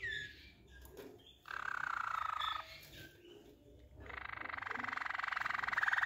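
Yellow Waterslager canary singing: a short falling whistled note, a rolling note about a second and a half in, then from about four seconds a fast, evenly pulsed roll that grows steadily louder.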